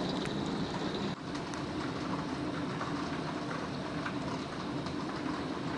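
Heavy rain falling steadily on a wooden deck, with runoff from the roof pouring into a plastic garbage can, a constant rushing hiss.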